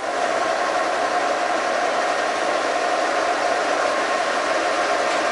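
Horizontal boring mill turning a boring bar at 335 rpm as its brazed carbide tool feeds through the welded bore of a connecting rod, cutting steadily. A steady, even machining noise with a mid-pitched hum in it, coming in abruptly at the start.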